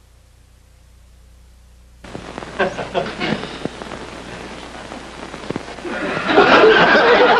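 Faint hum and hiss, then studio audience applause starting suddenly about two seconds in and growing much louder with voices mixed in near the end.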